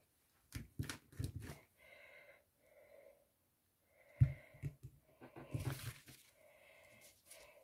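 Clear acrylic stamp block being handled and pressed onto paper on a tabletop: light knocks near the start, one sharp thump a little over four seconds in as it comes down, then a short rustle of paper.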